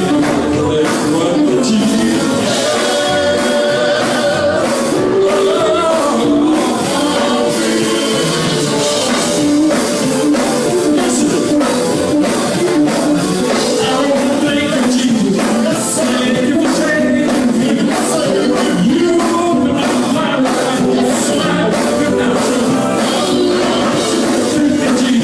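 Live gospel music: a band playing with singing over a steady beat.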